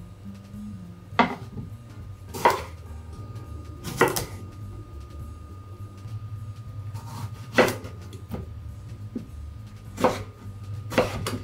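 Kitchen knife cutting small eggplants on a bamboo cutting board, trimming them at the stem and quartering them: six sharp knocks of the blade meeting the board, spaced unevenly a second or more apart, over a low steady hum.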